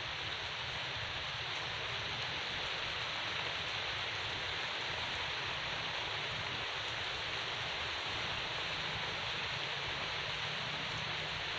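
A steady, even hiss with no clear pattern.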